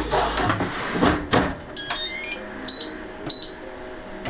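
Bagotte air fryer: the basket is pushed home with a couple of knocks, then the touch panel sounds a quick run of short stepped tones followed by two loud, short, high beeps as the cooking time and temperature are set.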